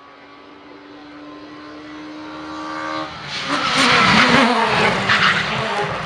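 Rally car engine held at high revs, a steady note growing louder as it approaches, then, about three seconds in, the loud rush of the car passing at full speed, with a few sharp cracks.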